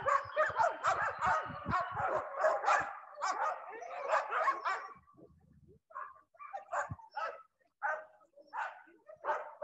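Sled dogs barking and yipping excitedly in a dense chorus that thins to scattered single barks about halfway through. This is the dogs' clamour while they are being hooked up for a run.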